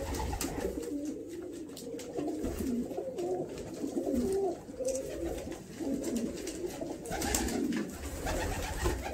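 A flock of Malwai fancy pigeons cooing continuously, many birds overlapping, with a brief flutter of wings near the end.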